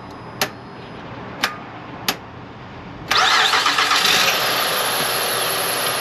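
A few short knocks, then about three seconds in the Honda Pilot's 3.5-litre V6 starts and runs loudly, heard from under the hood. The starter is working this time, though it fails intermittently and is judged in need of replacing.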